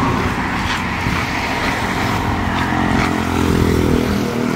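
Road traffic passing close by on a highway: a pickup truck and cars going past with engine and tyre noise. A vehicle's engine hum comes in stronger past the middle.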